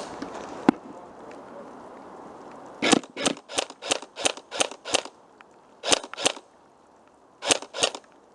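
Airsoft gun firing single shots in quick succession: a single sharp click about a second in, then a run of about seven shots, about three a second, followed by two pairs of shots.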